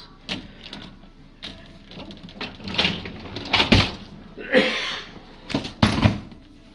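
Clinks and knocks of dishes, utensils and dishwasher racks being handled, with several sharper knocks and a short scraping slide about four and a half seconds in.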